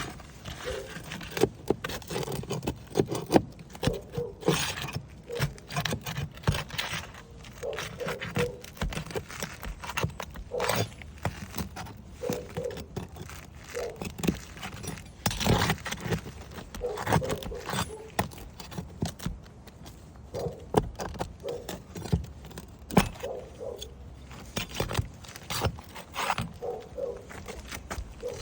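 Irregular clicks, scrapes and knocks of hand work on a damaged roof shingle, going on all through with no steady rhythm.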